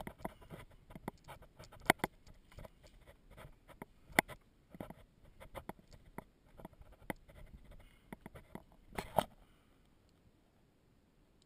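Someone scrambling over loose rock and gravel in a cave: irregular crunches, scrapes and knocks, with a few sharper knocks. It goes quiet about nine and a half seconds in.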